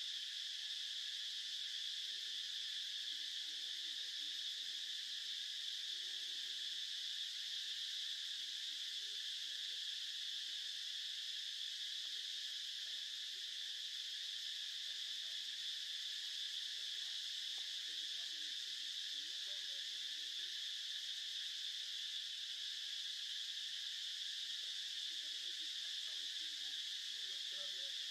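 Insect chorus: a steady, unbroken high-pitched drone.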